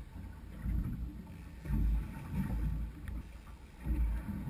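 Low, uneven rumble of wind buffeting the microphone and water moving around a small open boat, swelling and easing every second or so.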